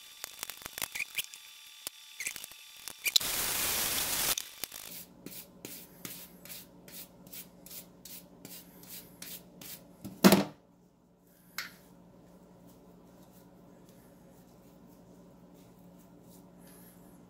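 A wire brush scraping old built-up paint out of the heel of a paint brush, in quick repeated strokes of about two to three a second. A brief hiss comes about three seconds in, and a single loud knock comes about ten seconds in, after which the scraping stops.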